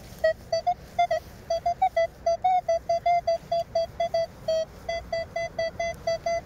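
Metal detector sounding off on a shallow target: a rapid train of short beeps at nearly one pitch, about five a second.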